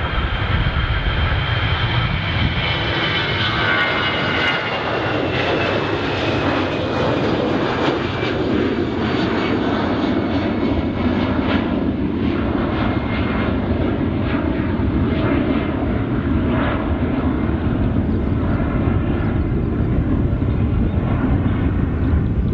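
Airbus A320-214's two CFM56-5B turbofan engines at takeoff thrust as the jet lifts off and climbs away. It is a loud, steady jet noise with a high whine that falls in pitch over the first several seconds, then turns into a rough, crackling rumble as the aircraft moves away.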